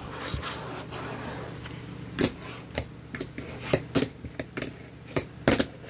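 A fingerboard on 36 mm Dynamic trucks and tan urethane wheels rolling across a desk top, then a run of sharp clacks, about eight in the last four seconds, as the tail is popped and the board lands during trick attempts.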